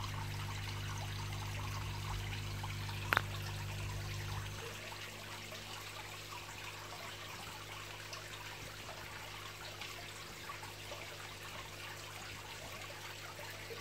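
Water trickling and splashing into a raised koi pond from the filter's small return pipes, a steady watery patter. A low steady hum underneath drops away about four and a half seconds in, and there is one brief click about three seconds in.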